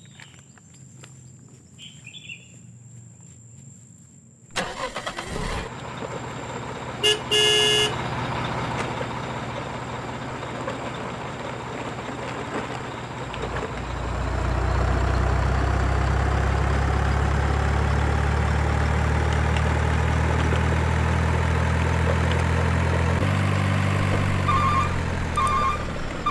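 Dubbed-in truck sound effect: after a few quiet seconds a truck engine starts up and runs with a slowly rising whine, and a short double horn honk comes about 7 s in. From about 14 s a deep, steady engine rumble takes over and shifts in pitch near the end.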